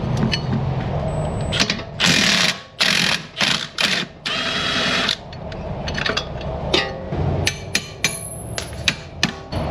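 Cordless Milwaukee impact wrench hammering on a large suspension bolt at the front steering knuckle in several short bursts, about two to five seconds in, breaking it loose. Clinks of tools and metal parts being handled follow.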